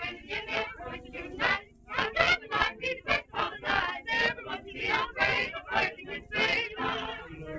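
Mixed choir singing with a wide, wavering vibrato, phrase after phrase with a brief pause about one and a half seconds in, heard through a worn 1931 early sound-film recording.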